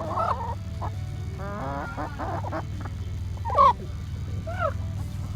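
Chickens clucking and squawking in a run of short calls, one much louder squawk about three and a half seconds in.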